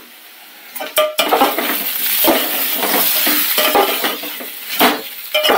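Metal spoon stirring and scraping potato chunks frying in an aluminium pot, clinking against the pot's sides over a light sizzle of oil. The stirring starts about a second in.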